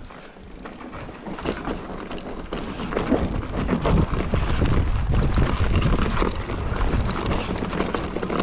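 Wind rumbling on the microphone, mixed with a run of irregular knocks and rattles, louder from about three seconds in.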